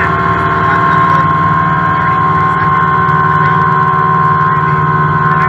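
Cessna light aircraft's engine and propeller droning steadily in cruise, heard inside the cabin, with a constant high tone over the low drone.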